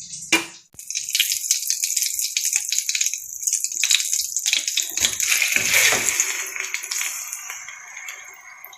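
A sharp knock, then marinated chicken sizzling and spattering in hot butter in a non-stick pan: dense, high crackling that eases off near the end.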